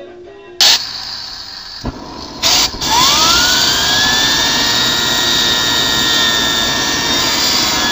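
Home-built tin can turbine jet engine running. After two short loud blasts, its whine rises quickly and settles into a steady high whine over a loud rushing roar.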